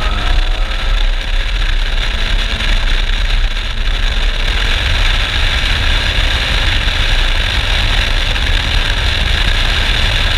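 Wind buffeting a camera mounted on the outside of a car at track speed, a heavy rumble with a steady rush of wind and road noise. The Acura TSX's K24 2.4-litre four-cylinder sits faint beneath it, its note rising in the first few seconds as the car accelerates.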